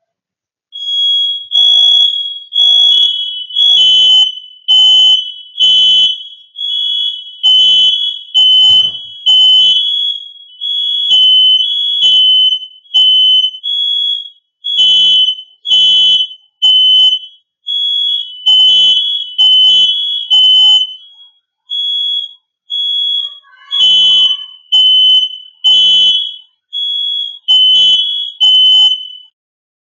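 Smoke detector alarm going off: loud, shrill beeping at two slightly different high pitches, repeating rapidly with a few short pauses, starting about a second in.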